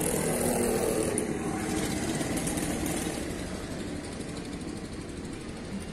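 A motor vehicle's engine running close by on the street, gradually fading away.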